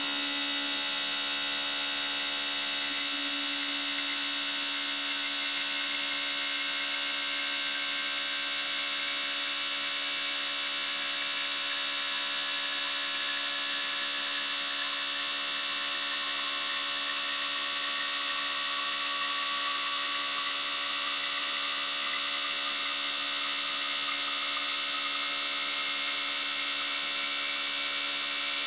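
Four fuel injectors on a flow-test bench pulsing rapidly together, a steady high-pitched buzz with the hiss of their spray, as they fill graduated cylinders with test fluid.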